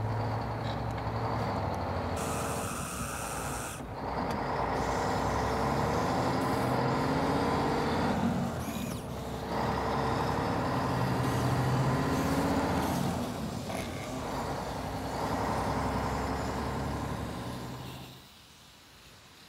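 Truck engine running, rising and falling in pitch over several stretches, with short spells of hiss like an air brake; it stops about 18 seconds in.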